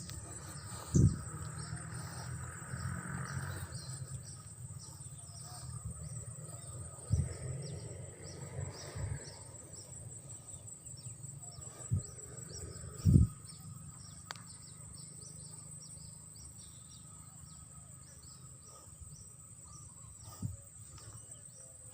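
Outdoor insect chorus: a steady high drone with short chirps repeating about twice a second. Several dull low thumps break in, the loudest about 13 seconds in.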